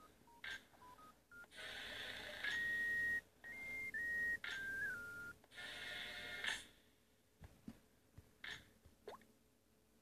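A simple tune of pure electronic beeps: single tones stepping up and down in pitch, the first short, later ones held about half a second, mixed with three loud bursts of hiss. After about seven seconds only a few faint clicks remain.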